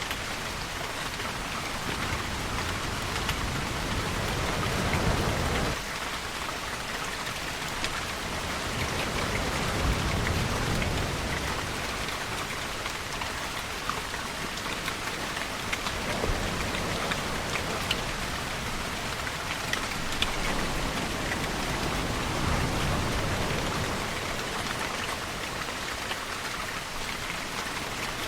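Steady rain falling, with deeper swells that rise and fade three times; the first one cuts off suddenly.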